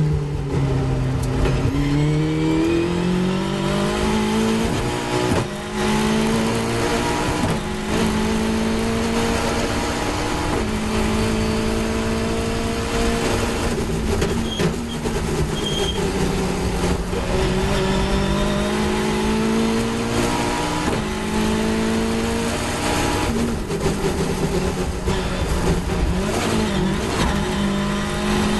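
Caterham 420R's two-litre Ford Duratec four-cylinder engine at racing speed, heard onboard in the open cockpit: it revs up through the gears with a sharp drop in pitch at each upshift, then eases off and changes down later on, over heavy wind and road rush.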